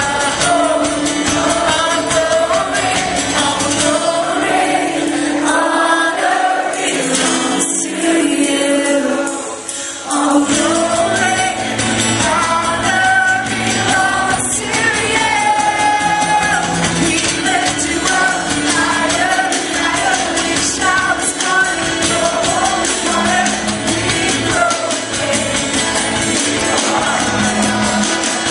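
A worship song: several voices singing a melody together over instrumental accompaniment.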